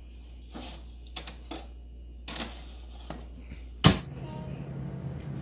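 Metal tongs clicking and scraping on an air fryer's wire mesh tray: a handful of light, scattered clicks over about four seconds. A sharp, loud click comes just before four seconds in, and a steady low hum follows.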